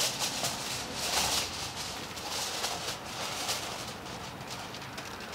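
Aluminium foil crinkling and rustling in irregular bursts as it is handled.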